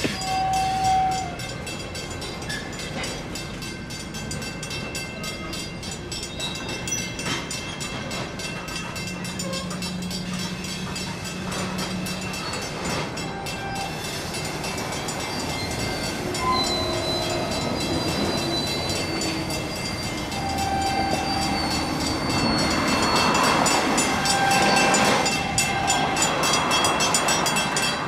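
Freight train rolling past: a steady rumble and clatter of wheels on the rails, with brief high-pitched squeals coming and going, growing louder near the end.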